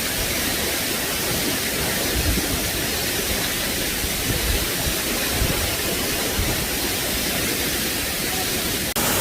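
Steady rush of the Ara man-made waterfall heard up close, in the reach of its spray. The rush breaks off abruptly near the end and carries on slightly louder.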